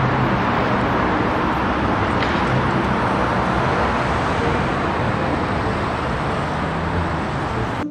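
Steady street traffic noise as a single-deck city bus drives past, with a low hum under it.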